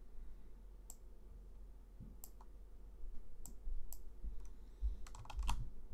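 Computer mouse clicking: single sharp clicks about a second apart, then a quick run of clicks near the end.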